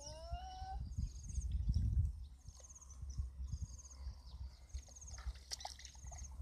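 Open-field ambience: a bird repeats a short, high buzzy trill about once a second over low rumbling wind and handling noise, with a brief rising call in the first second.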